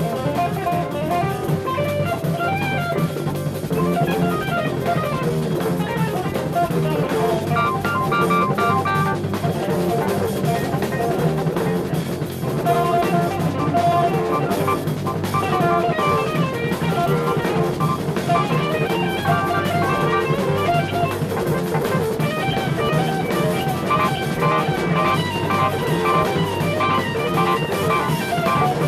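Jazz-rock fusion band playing live: electric guitar, electric bass and drum kit, with keyboards, in a continuous instrumental passage.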